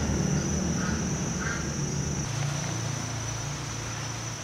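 A low engine-like rumble slowly fading away, with two short high calls about a second in and a steady high whine throughout.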